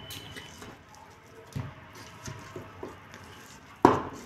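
Steel spoon mashing and mixing boiled potato in a steel bowl: soft squishing and scraping with a few light knocks, then one sharp knock of the spoon against the bowl near the end.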